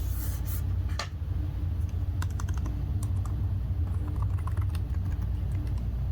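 Keys being pressed on the Asus Zephyrus G15 laptop's keyboard: scattered, irregular clicks over a steady low hum.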